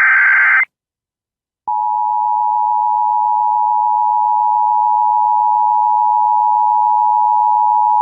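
Emergency Alert System tones. A harsh burst of the digital SAME header data stops under a second in. After about a second of silence, the steady two-tone EAS attention signal starts and holds without change.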